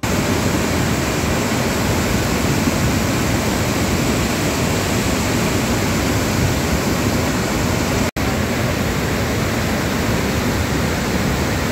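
Flash-flooded mountain stream, a muddy torrent rushing loudly and steadily down its gully. The sound cuts out for an instant about eight seconds in.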